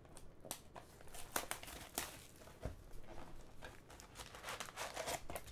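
Trading-card pack wrappers crinkling in irregular crackles and clicks as hands pull packs from an opened hobby box.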